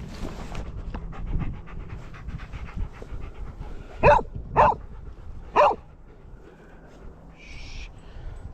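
A dog barks three times, sharply, about four to six seconds in, after a few seconds of quick, even panting.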